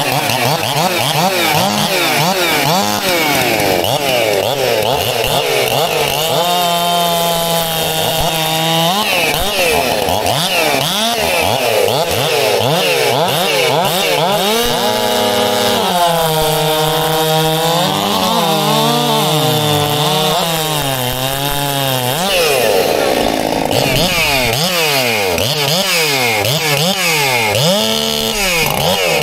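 Two-man chainsaw running loud through a cut in a timber beam, its engine pitch swinging up and down, with longer spells held at a lower, steadier pitch.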